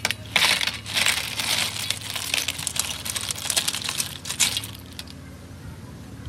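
Cooked snails in their shells, with sauce, tipped from a wok onto a large stainless steel tray: the shells clatter and rattle on the metal in a dense run that stops about four and a half seconds in.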